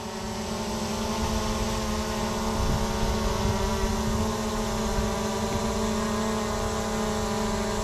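Holystone HS600 GPS quadcopter hovering: its propellers give a steady, lower-pitched hum made of several held tones, not an annoying loud whine.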